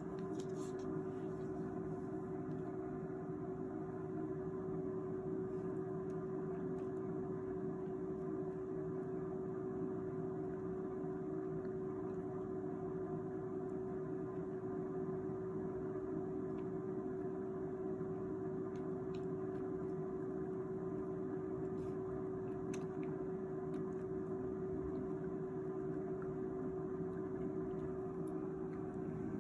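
A steady machine hum with one constant tone, and a few faint ticks over it.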